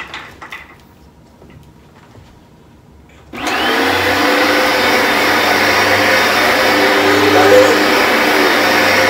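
Upright carpet cleaner switched on about three seconds in, its motor then running loud and steady with a low hum underneath. A few light clicks of handling come before it starts.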